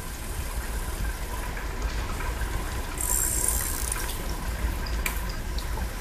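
Faint clicks and scrapes of a carburetor adjustment tool turning out the high-speed mixture screw of a small two-stroke carburetor, over a steady low hum, with a brief hiss about three seconds in.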